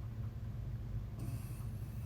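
Pug puppy snoring in its sleep: a low, steady rumble, with a short hiss about a second in.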